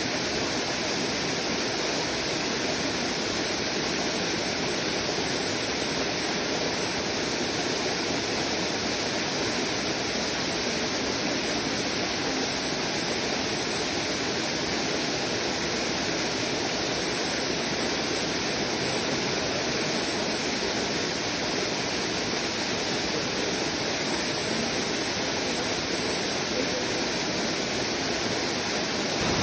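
Waterfall, water falling and rushing in a steady, unbroken roar.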